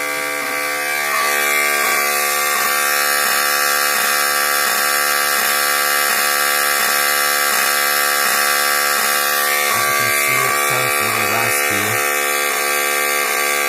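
Wheelock 7002T fire alarm horn sounding continuously after a pull station is pulled: a loud, steady buzzing horn tone. It sounds really deep and really raspy, not like a normal 7002T, which the owner puts down to the horn having been dropped and repaired.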